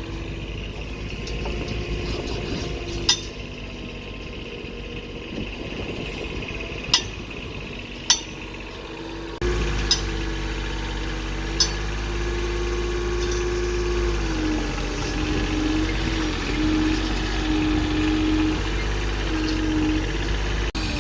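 An engine running steady, with its pitch wavering slightly. A few sharp metallic clinks sound over it, about five in all. The sound changes abruptly about nine seconds in, then the engine continues, a little louder.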